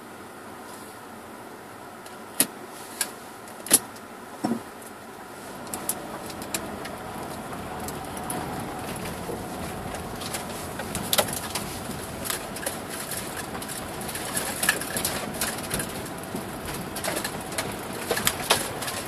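2007 Subaru Forester's flat-four engine and tyres driving over a rough dirt forest track, the running noise growing louder about five seconds in. Sharp knocks and rattles from the bumpy ground come through it, four strong ones in the first few seconds and many more later.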